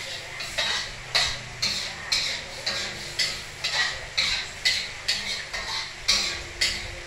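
Metal spatula scraping and knocking against a wok while food is stirred over the gas flame, in a steady rhythm of about two strokes a second.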